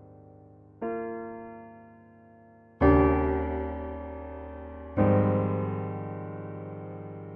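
Slow, soft piano music: three sustained chords, struck about two seconds apart, each left to ring and fade away.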